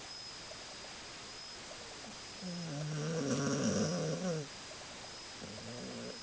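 A sleeping pet snoring: one long snore about two and a half seconds in, lasting about two seconds, then a shorter, fainter one near the end.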